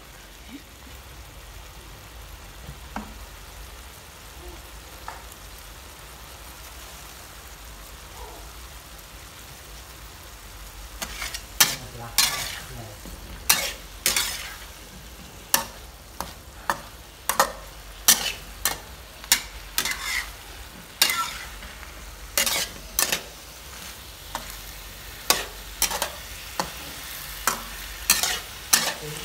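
Beef and okra sizzling steadily in a metal wok. About a third of the way in, a spatula starts scraping and clanking against the wok in repeated strokes, roughly one a second, as the stir-fry is turned.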